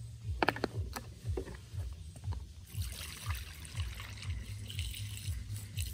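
Premixed two-stroke petrol-oil poured from a plastic bottle through a plastic funnel into a chainsaw's fuel tank. There are a few plastic clicks as the funnel is set in place, then a steady trickling hiss of fuel from about three seconds in.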